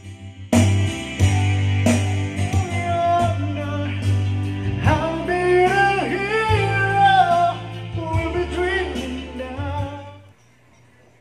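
A karaoke song, a sung melody over a backing band, played from a TJ Media Supremo karaoke player through the Konzert AR-902+ amplifier and loudspeakers into the room. It starts about half a second in and stops about ten seconds in.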